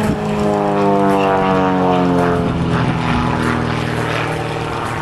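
Piston-engined propeller aircraft flying past, its engine note sliding steadily down in pitch as it goes by.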